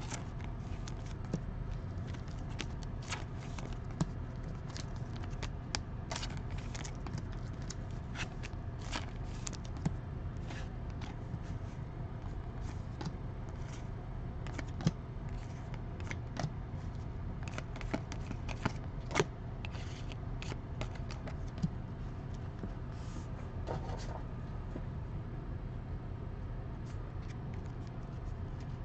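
Trading cards being handled and flipped through: irregular small clicks and scrapes of card stock, a few sharper ones in the middle, over a steady low hum.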